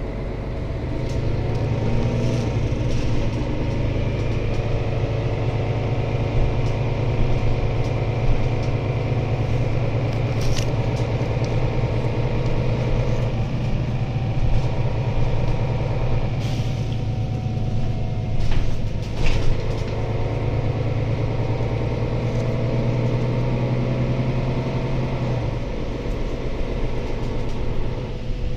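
Mercedes-Benz Citaro C2 city bus heard from inside the passenger saloon while driving: steady low diesel drone with road noise. A few short knocks and rattles come through, mostly in the second half.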